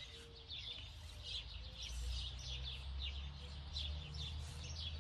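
Small birds chirping and twittering repeatedly, with a steady low rumble underneath.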